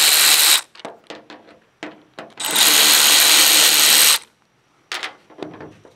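Cordless power driver backing the screws out of an old cab roof marker light. The motor runs until about half a second in, then after a few small clicks of screw and bit it runs again for nearly two seconds and stops, followed by one more click.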